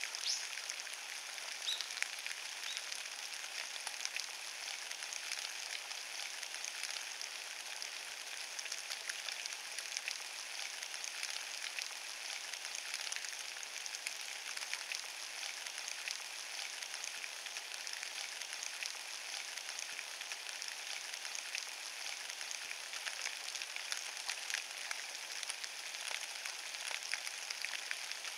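Rain falling steadily on a carpet of wet fallen leaves: a dense patter of small drop ticks over an even hiss.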